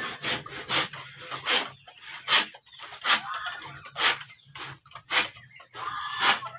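Chickens clucking in short, repeated calls about every half second to a second, with scuffing and rustling between them.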